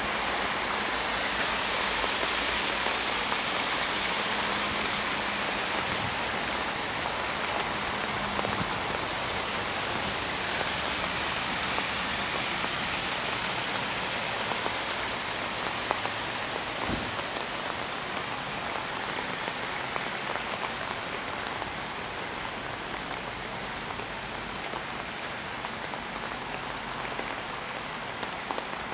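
Steady rain falling on garden foliage and stone paving, an even hiss with a few sharper drips. It gets slightly quieter toward the end.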